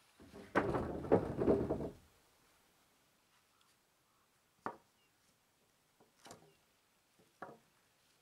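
Wooden boards and beams clattering as they are handled and set down, a burst of clatter in the first two seconds, then a few single knocks of wood on wood.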